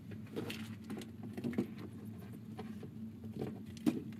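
Irregular light clicks and rattles as a rabbit noses and paws a woven wicker treat ball around a plastic cage floor, over a steady low hum.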